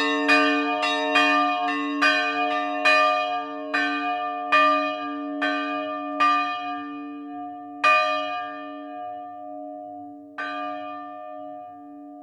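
Two bronze church bells, a 160 kg bell tuned D-sharp/E-flat and a 60 kg bell tuned B-flat, ringing together as they swing to rest. The clapper strikes grow fewer and farther apart, the last about ten seconds in, and the bells' hum is left to fade.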